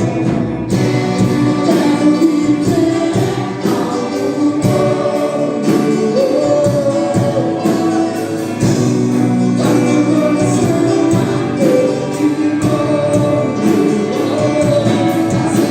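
Congregational gospel singing by a group of voices over band accompaniment with a steady beat, with a tambourine.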